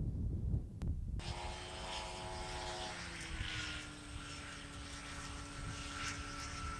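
A propeller-driven light aircraft engine drones steadily. It starts abruptly about a second in and its pitch drops slightly a couple of seconds later, as a plane passing by does. Wind rumbles on the microphone before it starts.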